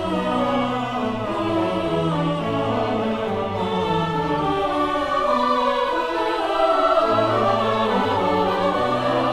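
Symphony orchestra playing classical music with singing voices, the bass notes changing about once a second.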